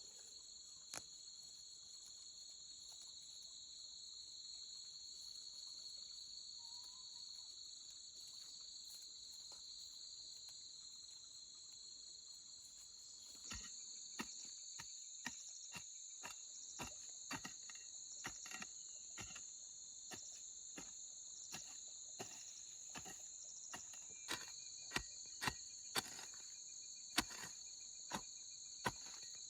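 Steady high-pitched insect chorus, like crickets, running without a break. About halfway through, a run of irregular sharp clicks or taps begins and grows louder near the end.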